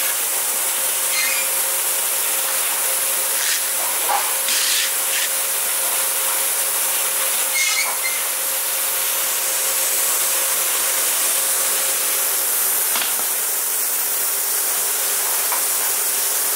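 Bottling-line machinery running: a steady, loud hiss with a faint constant hum, broken by a few light knocks and clinks of plastic bottles and cartons about four and eight seconds in.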